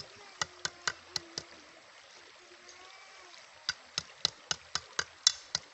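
Machete chopping a lemongrass stalk against a rock: sharp knocks, about six in the first second and a half, then a pause, then about eight quicker strikes at roughly four a second near the end.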